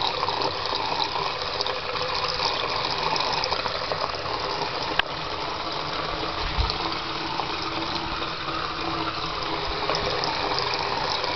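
Bathroom sink tap running steadily, water splashing into the basin.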